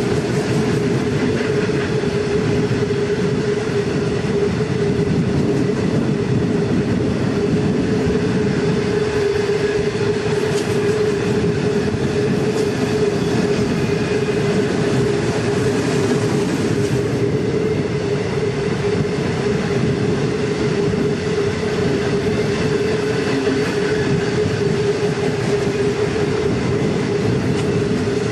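Wagons of a long freight train rolling on the rails, a steady rumble and rattle with a constant droning tone held throughout.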